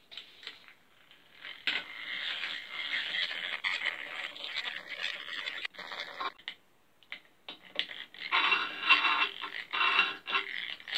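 Hand-cranked drill boring a 2.5 mm hole into a bicycle crank's axle: the bit scraping and grinding through the metal as the handle is turned. It comes in uneven stretches, stops briefly about six seconds in, and is loudest near the end, just before the bit breaks through.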